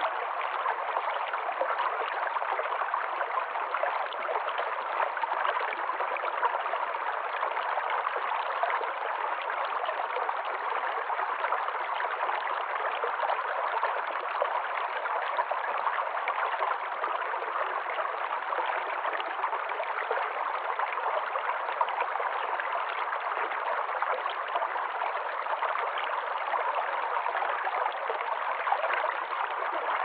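Shallow rocky stream flowing over stones: a steady, unbroken rush of running water.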